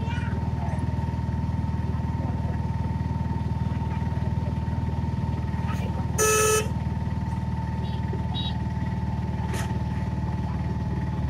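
Steady low running noise of a vehicle driving along a highway, with one short, loud horn honk about six seconds in.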